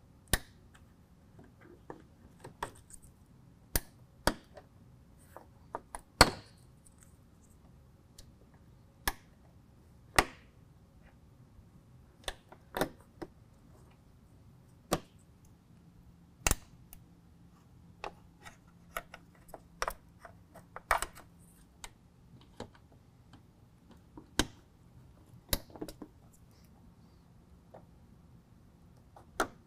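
Plastic push-pin retainers being pried up with a screwdriver and popped out of a Ford F-150's plastic radiator shroud: irregular sharp clicks and snaps, a few seconds apart, the loudest about six seconds in.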